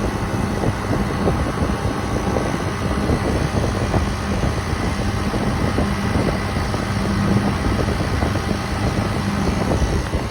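Walk-in cooler's outdoor condensing unit running steadily: compressor hum under the rush of the condenser fan, which its fan cycle control has switched on as head pressure rose.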